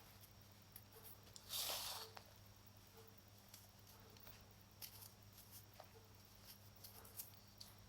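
Baking soda being crumbled and squeezed in the fingers: one louder gritty crunch about one and a half seconds in, then soft scattered crackles.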